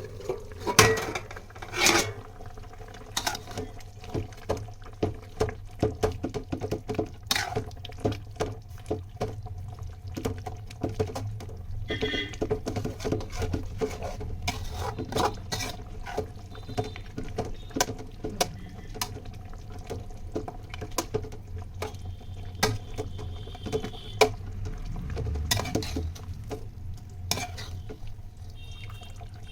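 A metal spatula stirring and scraping in a pot of curd chicken gravy, clinking against the pan many times at irregular intervals over a steady low hum.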